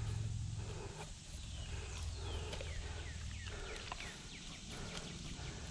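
Low rumbling noise on the microphone, wind and handling rub on a body-worn camera, with a run of short, high falling chirps between about two and five seconds in.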